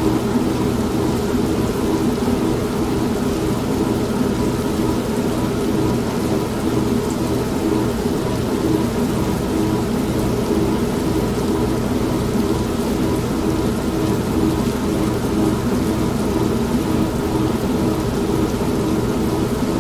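Old washing machine running with a steady, droning motor hum, mixed with steady rain.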